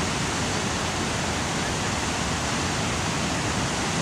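Large artificial waterfall cascading over rocks: a steady rush of water.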